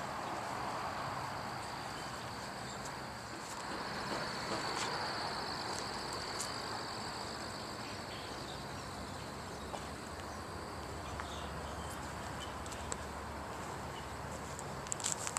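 Steady outdoor ambience with a continuous high insect trill, loudest about four to six seconds in, and a few faint clicks.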